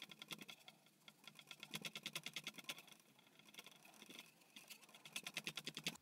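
Paintbrush dabbing paint onto canvas: faint quick taps, about ten a second, in short runs of a second or so with pauses between.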